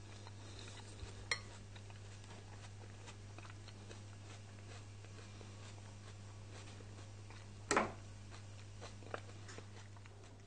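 A metal fork tapping and scraping against a glass baking dish as it digs into baked butternut squash. There is a sharp tap about a second in and a louder, longer clink near eight seconds, over a steady low hum.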